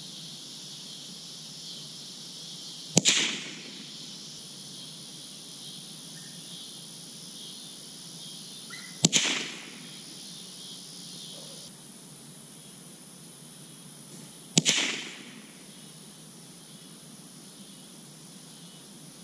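Three shots from a Marlin .22 rifle firing .22 Long Rifle rounds, about six seconds apart, each a sharp crack with a short trailing echo, as the rifle is sighted in.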